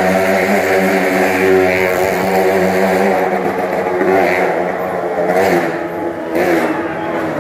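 Motorcycle engine held at high revs as it rides around the vertical wooden wall of a wall-of-death drum. Its pitch is steady at first, then rises and falls from about halfway through.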